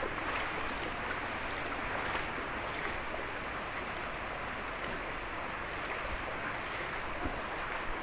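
Steady rushing of water, with no breaks or distinct splashes.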